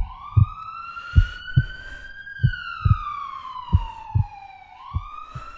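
Heartbeat sound effect, low thumps in pairs (lub-dub) about every second and a quarter, under an emergency-vehicle siren in a slow wail, rising for about two seconds, falling for about two and a half, and rising again near the end.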